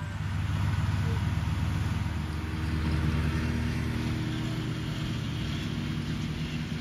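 Farm tractor engine running steadily as the tractor pulls a hay implement across a mown field.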